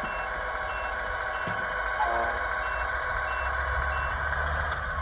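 RC model truck's sound module playing a reversing beeper, a row of short high beeps, over a simulated diesel engine that grows louder in the second half.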